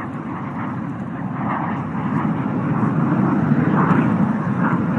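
Jet noise from a JF-17 Thunder fighter's single RD-93 turbofan as the aircraft flies overhead just after a four-point roll, growing louder about two seconds in.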